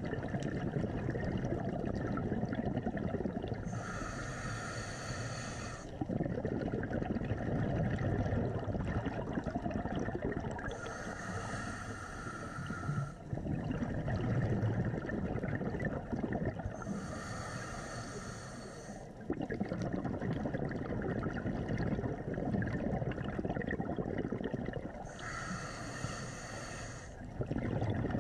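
Scuba diver breathing through a regulator, heard underwater: four breaths, each a hiss of about two seconds recurring roughly every seven seconds, between longer stretches of bubbling rumble.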